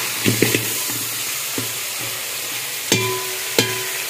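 Mutton pieces frying in ghee in a steel pot, sizzling steadily while a metal ladle stirs them, knocking against the pot. Two louder clanks about three seconds in and half a second later, the pot ringing briefly after each.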